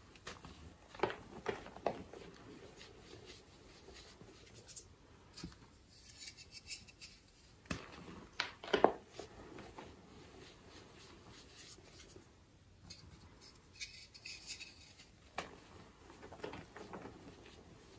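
Moulded blocks of dyed gym chalk squeezed and crushed by hand: dry crunching and crumbling in several separate squeezes, with quieter rubbing of chalk powder between them.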